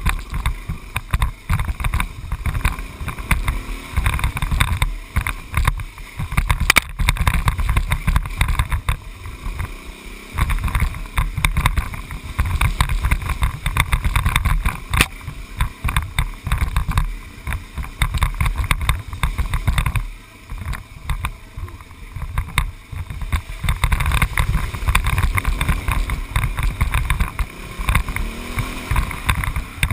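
A vehicle driving along a dirt road, with wind buffeting the microphone in uneven low gusts throughout.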